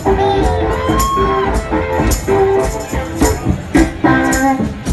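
A live band playing a blues-rock number: a steady drum beat with shaker- or tambourine-like percussion under held melody notes with some bending pitches.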